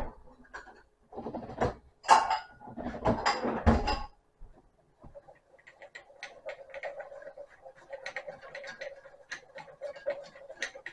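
A few loud knocks and clatters in the first seconds. From about five seconds in, a wire whisk beats butter and flour in a nonstick pot, making a quick, steady run of scraping clicks.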